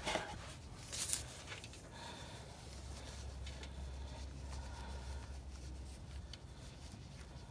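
Faint clicks, a small knock and rustling from a gloved hand working metal parts as a replacement power steering pump is fitted and its mounting bolts are started by hand, with a low hum through the middle.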